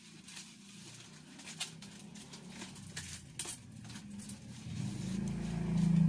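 Cat's low, steady rumbling, swelling louder near the end.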